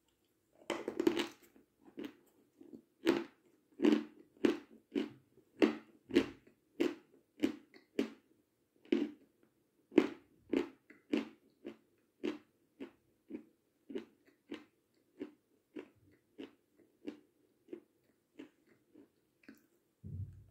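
Close-up crunching as a chunk of Seversky chalk is bitten and chewed, about two crunches a second. The crunches grow fainter toward the end, and there is a low thump just before it.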